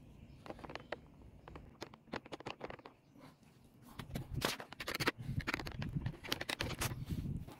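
Scratching and scraping handling noise from the phone being moved and gripped against its microphone. The noise grows louder and busier about halfway through.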